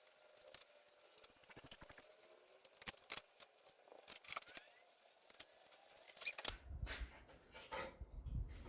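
Faint, irregular small clicks and taps of hand work on car parts, with a low rumble coming in about two-thirds of the way through.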